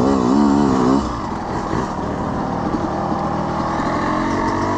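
Two-stroke dirt bike engine revved in quick up-and-down throttle blips for about a second, then running lower and steadier.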